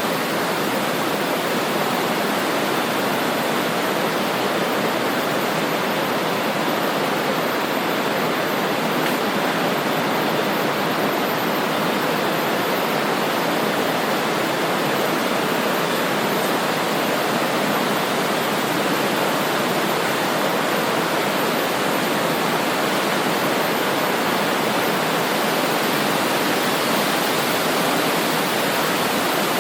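Swift river water rushing over its bed, a steady, unbroken wash of flowing water.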